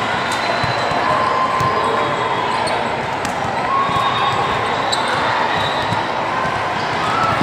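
Indoor volleyball rally: the ball struck and bouncing on a gym court, with short squeaks of shoes on the floor, over a steady hubbub of voices in the hall.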